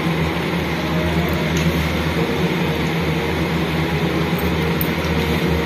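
A steady mechanical hum with a rushing, airy noise over it, unchanging throughout, with no separate knocks or clicks.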